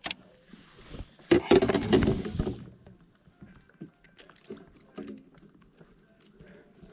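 Fishing gear being handled in a plastic fishing kayak. A noisy burst lasts about two seconds near the start, then come scattered light clicks and knocks.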